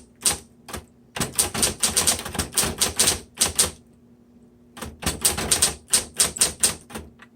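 Smith Corona Electra 110 electric typewriter being typed on in quick runs of sharp key strikes, with a pause of about a second midway. Its motor hums steadily underneath.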